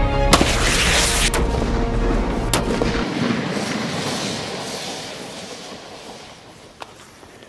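A single very loud shot from a .50 BMG bolt-action rifle (Desert Tactical Arms HTI) firing a Raufoss explosive round. Its report rolls away and fades over several seconds, with two weaker sharp cracks about one and two seconds after it. The propane tanks it hits do not explode.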